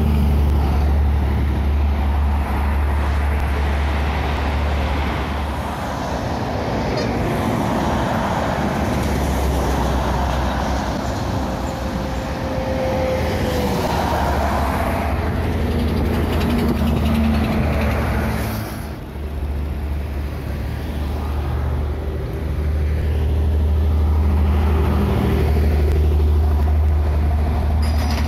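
Road traffic noise with a heavy low-loader truck on the road: a loud, steady low rumble of engines and tyres. The level dips briefly about two-thirds of the way through.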